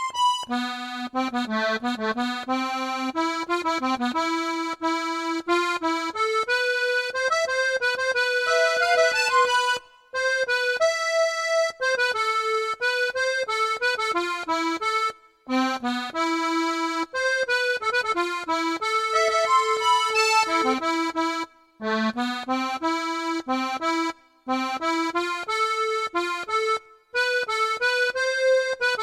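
Accordion playing a slow melody alone, single held notes with light bass accompaniment, pausing briefly between phrases.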